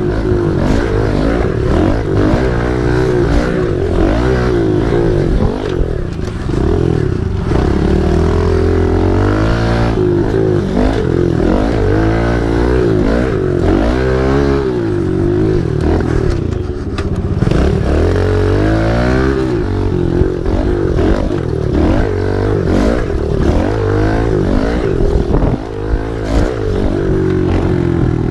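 Kawasaki KLX 110's small four-stroke single-cylinder engine revving hard and backing off again and again while riding, its pitch repeatedly climbing and dropping.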